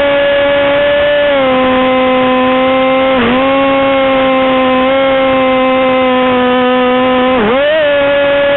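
Small high-revving engine of a flying aircraft running at a steady high speed, its pitch dipping briefly and recovering twice, about three seconds in and again near the end.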